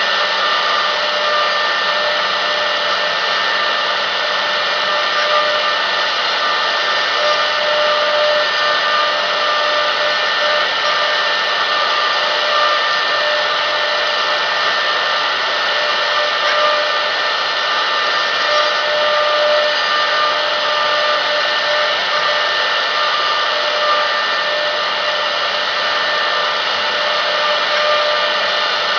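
Spindle of a 1325 CNC wood router with a rotary axis, running steadily with a high, even whine over a hiss.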